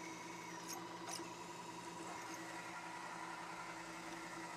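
Milling machine running steadily with a drill bit cutting into a metal block, with a couple of light ticks about a second in.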